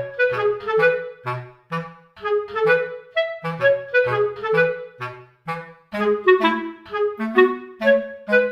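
Background music: a bouncy woodwind melody of short, separate notes over a bass line, at a steady beat.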